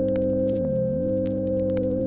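Background music: a sustained high held note over lower tones that swoop down and back up about a second in.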